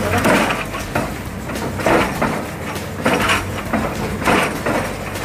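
XCMG rotary drilling rig working at a bored-pile casing: its engine runs with a steady low hum, under rough grinding or clanking noises that come about once a second.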